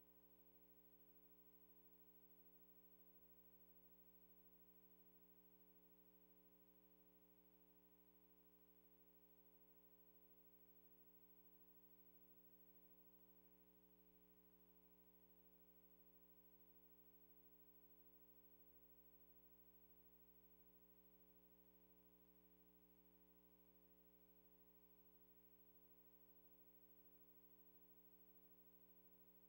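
Near silence: only a faint, steady hum with light hiss.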